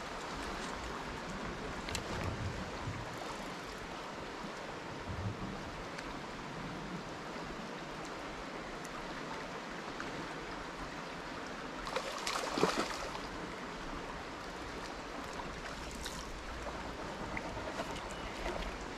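River water flowing steadily over a riffle, an even rushing hiss, with one brief louder noise about two-thirds of the way through.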